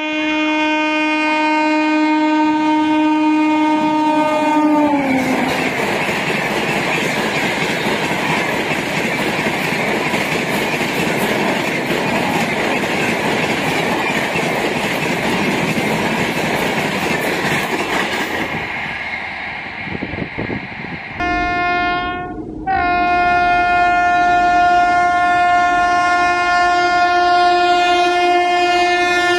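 A train horn held for about five seconds, falling in pitch as the locomotive passes, then the rush and wheel clatter of coaches going by at speed. After a cut, a WAP-7 electric locomotive's horn sounds long with a short break, and drops in pitch near the end as it passes.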